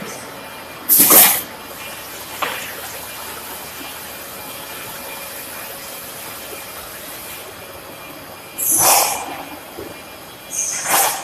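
Wood-flooring packing line running with a steady hiss. It is broken three times by short, loud hissing blasts: about a second in, near nine seconds, and at the end.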